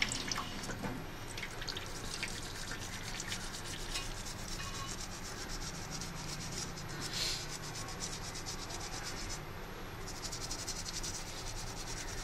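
A toothbrush scrubbing a soapy fingertip in quick, scratchy strokes, working to remove indelible election ink.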